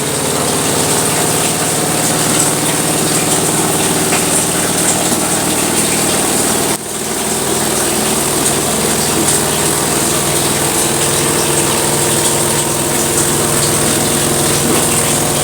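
Sharp ES-T86CL twin-tub washing machine on its wash cycle: the motor turns the pulsator with a steady, smooth hum while water churns in the tub. The sound dips briefly about seven seconds in.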